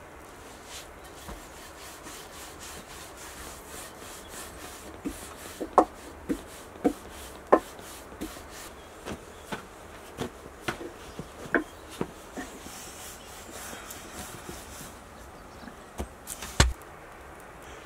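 Freshly baked lavash bread handled at a tandoor: irregular dry clicks and crackles over a steady faint hiss, with one louder knock near the end.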